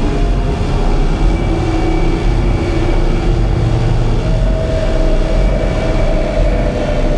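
Experimental drone-noise music: a loud, dense low rumble under several sustained droning tones, with a new, higher held tone coming in about four seconds in.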